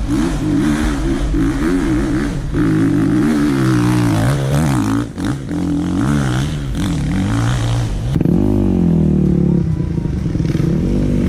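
Enduro dirt bike engines revving hard and unevenly, the pitch rising and falling as the throttle is worked on a steep dirt hillclimb, with a sharp rev-up about eight seconds in.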